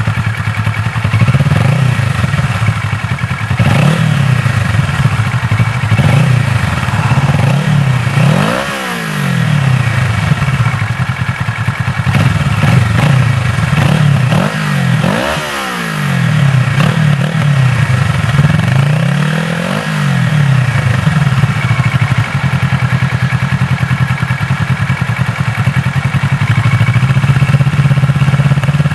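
2012 Kawasaki ER-6n's parallel-twin engine through a full Akrapovič exhaust with dB killer and catalytic converter, its revs rising and falling repeatedly with a few sharp climbs in pitch. It settles to a steady note for the last several seconds.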